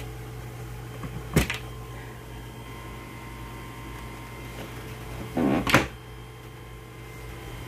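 Wooden cabinet door with a push-button latch: a sharp click as it is opened about a second and a half in, then a brief rustle and a second sharp click as it is shut about three quarters of the way through. A steady low hum runs underneath.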